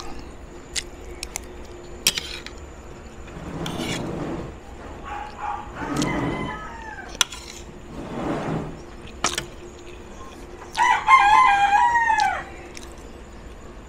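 Rooster crowing, one loud crow near the end that falls in pitch as it trails off, with fainter calls earlier. A few sharp clicks are scattered through.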